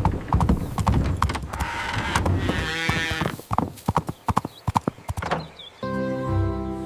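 Cartoon hoofbeats, a fast run of sharp clip-clopping clicks, with a short animal call about three seconds in. A held musical chord comes in near the end.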